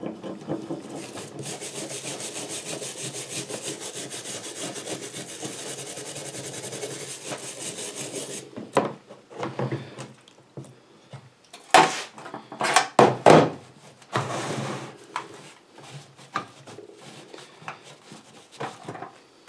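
Screwdriver blade scraping caked carbon off a Briggs & Stratton lawn mower cylinder head in rapid, even strokes for about eight seconds. Then come irregular splashes and knocks as the part is worked in a tub of cleaner, and quieter rubbing near the end as it is wiped with a rag.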